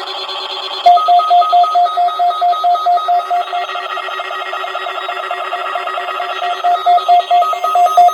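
Weather radio receiver sounding its alert for the weekly test: rapid, evenly pulsed electronic beeping that starts about a second in and cuts off abruptly at the end, over the radio's steady droning audio.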